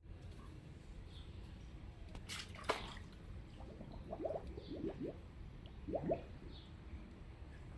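Water dripping and gurgling: a few quick rising plinks of drops, with one sharp click a little under three seconds in.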